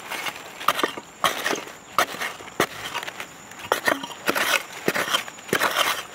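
A digging tool striking and scraping into dry, crumbly soil, about eight or nine irregular sharp knocks with loose earth and dry leaves rustling between them.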